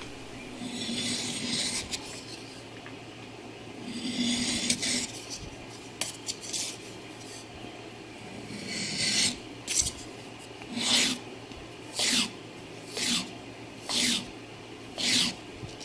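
600-grit abrasive paper on a sanding stick rubbed across the end of a steel clock pin held in a vise, smoothing it after deburring. A few slow strokes at first, then quicker short strokes about one a second in the second half.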